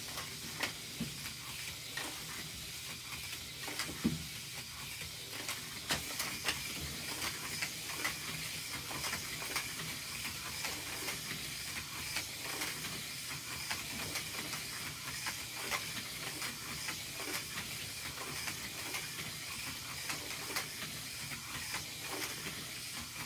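Hot Wheels Speed Chargers battery-powered toy race cars running laps on plastic track: a steady high hiss from their small electric motors and wheels, with frequent light clicks as they cross track joins and pass through the charging station.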